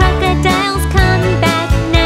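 Children's song: a cheerful sung vocal over a bouncy backing track with a steady beat, about two beats a second.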